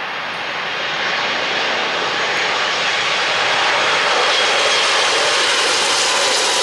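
Rolls-Royce RB211 turbofans of a Boeing 747-400 on landing approach with gear down, a jet roar that grows louder over the first few seconds as the airliner comes low overhead, then holds. A faint high whine sits on top and falls slightly in pitch near the end.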